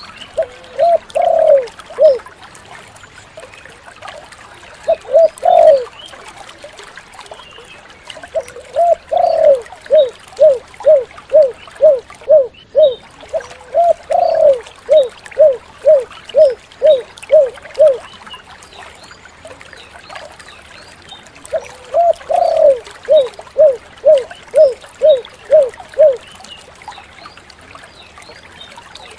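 Spotted dove (tekukur) cooing: four runs of short, low coo notes at about two a second, with pauses between the runs. The longest run comes in the middle and the last one near the end.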